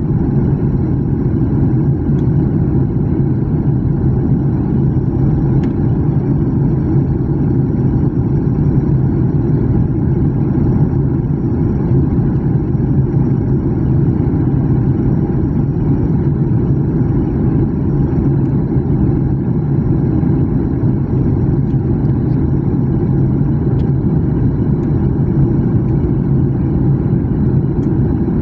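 Steady low drone of a jet airliner's engines and rushing air heard inside the passenger cabin on the approach to landing, with a constant hum underneath and no changes.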